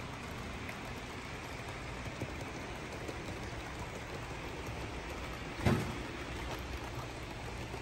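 HO scale model train running on the layout's track, a steady rolling hiss of wheels and motors, with one sharp knock about six seconds in.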